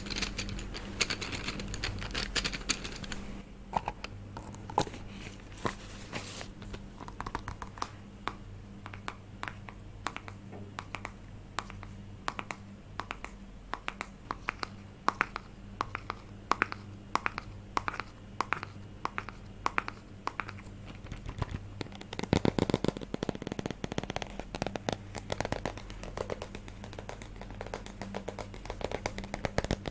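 ASMR tapping: a run of crisp taps, quick at first, then slowing to a few taps a second, then a fast dense flurry of tapping from about twenty-two seconds in. A faint steady low hum sits underneath.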